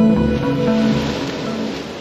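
Soft ambient background music with sustained notes, fading out, over the wash of sea surf.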